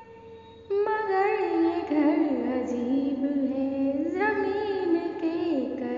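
A woman's voice singing a Hindi song in sliding, ornamented melodic phrases. After a short quieter gap at the start, the singing comes back in under a second.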